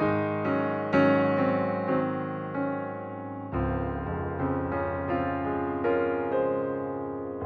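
Background music played on piano or electric piano: a steady flow of notes, about two a second, with a lower bass entering about halfway through.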